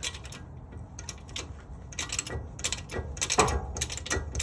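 Repeated metal ratcheting clicks in uneven strokes, with a louder click about three and a half seconds in: a jack being worked to raise the boat trailer so the wheel can come off.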